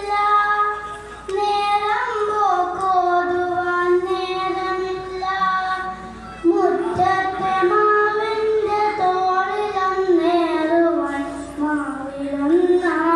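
A boy singing a Malayalam poem as a solo voice, in a slow melodic line of long held notes, with short breaks between lines.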